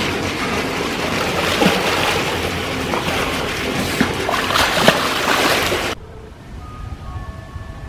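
Loud, steady rushing noise with a few sharp knocks, cut off abruptly about six seconds in; soft music notes follow near the end.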